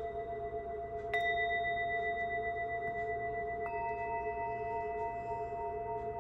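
Small Tibetan singing bowls ringing together, with a low wavering tone running underneath. Fresh strikes about a second in and again near four seconds in add new, higher tones over the ones still sounding.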